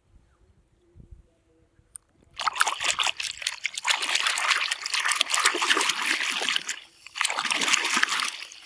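Water splashing and running over a muddy plastic toy bus as it is washed, in two spells with a short break about seven seconds in.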